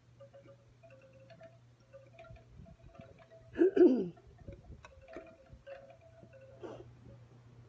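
Wind chimes ringing, the same few tones sounding again and again, with one brief, louder pitched sound about halfway through.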